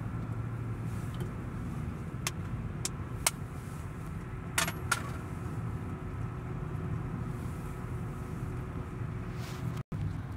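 Inside a moving car's cabin: steady low engine and tyre rumble while driving along a quiet paved road. A few sharp clicks or rattles come between about two and five seconds in. The sound cuts out for an instant near the end.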